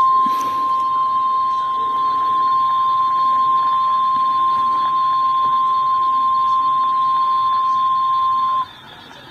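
NOAA Weather Radio warning alarm tone: a single steady 1050 Hz tone from a weather radio, held for several seconds and cutting off sharply near the end. It is the tone that announces a warning is about to be read, here a severe thunderstorm warning.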